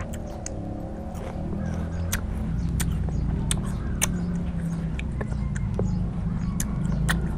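A person chewing fresh fruit with the mouth closed, making irregular wet clicks and smacks several times a second, over a steady low hum.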